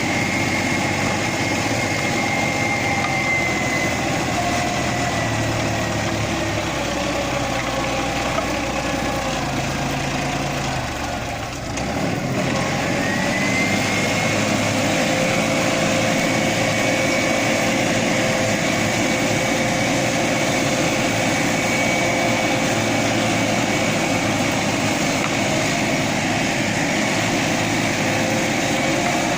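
Tümosan 6065 tractor's diesel engine running steadily under load while pulling a five-furrow plough. About eleven seconds in the engine note briefly drops and softens, then climbs back and holds steady.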